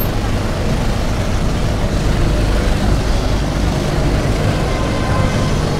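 Steady low rumble of street traffic, with a vehicle running close by.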